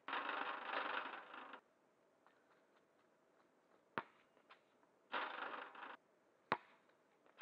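A basketball bouncing on an asphalt court: a sharp smack about four seconds in, and another sharp hit about two and a half seconds later. Two stretches of hissing noise start and stop abruptly, one at the start and one shortly after five seconds.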